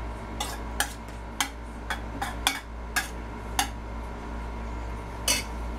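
Spoon clinking against the side of a stainless steel pot while stirring thin-sliced watermelon rind with spices and lemon juice: about nine sharp, irregular knocks.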